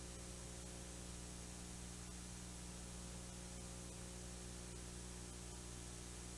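Faint, steady hiss with a low mains hum and no music: the noise floor of a VHS tape played back on a VCR and digitized.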